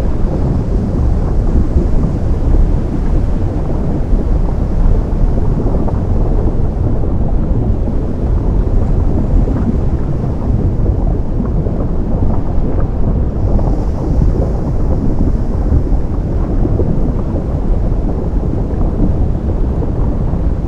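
Ocean surf meeting a lava flow, heard as a deep, steady, rumbling roar with no distinct hits.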